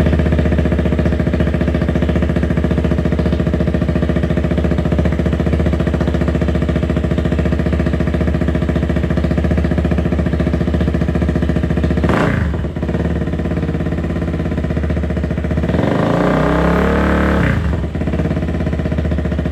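Motorcycle engine idling steadily through a long slip-on exhaust with its dB killer removed. About twelve seconds in there is a quick throttle blip, and near the end a longer rev that rises and falls back to idle.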